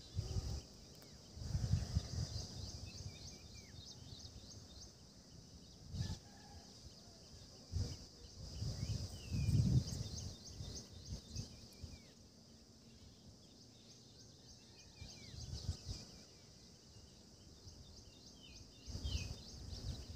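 Outdoor ambience: a steady high-pitched insect drone with short bird chirps now and then, broken by low rumbling bursts several times.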